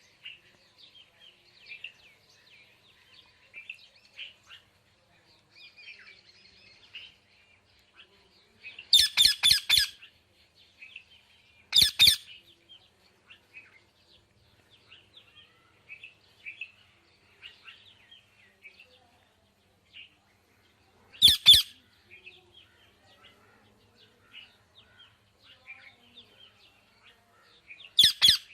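Pet parrots chirping and twittering continuously, broken by loud, sharp squawks: a quick run of several about a third of the way in, then single ones spaced several seconds apart.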